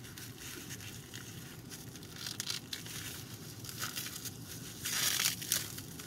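Plastic packing wrap crinkling and tearing as hands pull it off a small part, with louder rustles about two seconds in and near the end.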